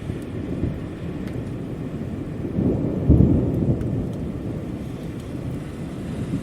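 Steady rain with a low rumble of thunder that builds to its loudest about three seconds in, then fades.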